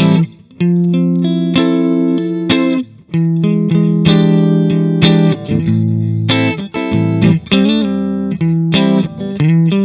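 Guitar playing the turnaround of a minor-key 1-4-5 blues in A minor: chords struck and let ring one after another, with a sliding phrase about three quarters of the way through.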